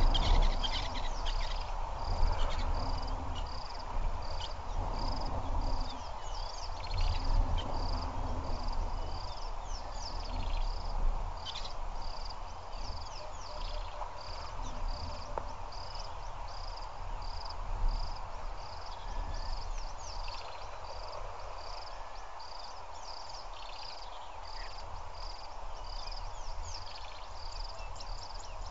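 An insect chirping in an even rhythm, a short high pulse about one and a half times a second, over a low rumbling outdoor noise that is louder in the first several seconds.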